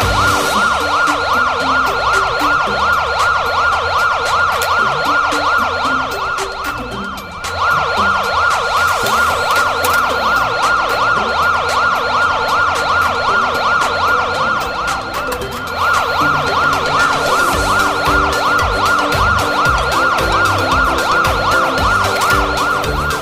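Electronic emergency-vehicle siren in a fast warble, breaking off briefly twice before starting again, over background music.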